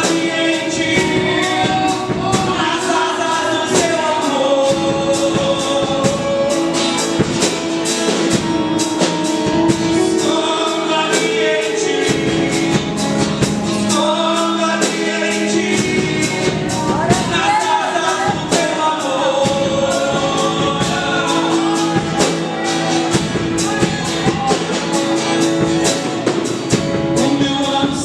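Gospel worship song: singing over a band, with sustained chords and a steady drum beat.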